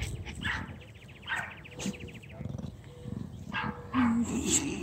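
A heavyset dog rolling on its back in the grass, giving several short rough grunts and snorts, with a rasping snort about a second and a half in.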